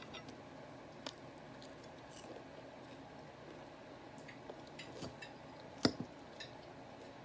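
A few faint clinks of cutlery against a dish, sparse and short, the loudest a little before six seconds in.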